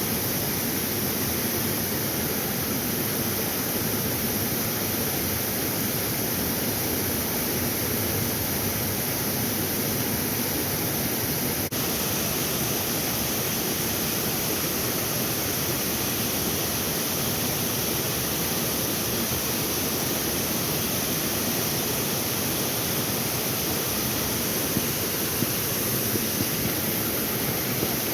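Steady rushing noise of running creek water, with no change in level throughout.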